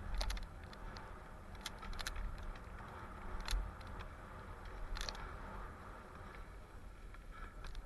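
Mountain bike riding a dirt singletrail: tyres rolling with a steady low rumble, and sharp clicks and rattles from the bike jolting over bumps, a handful spread through, the loudest about three and a half and five seconds in.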